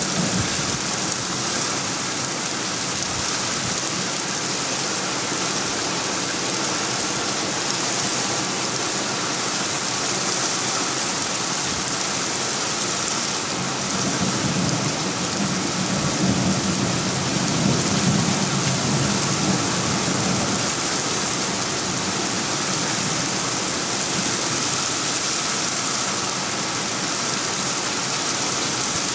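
Heavy thunderstorm downpour: steady, dense rain hiss, with a low rumble of thunder that swells about halfway through and fades again.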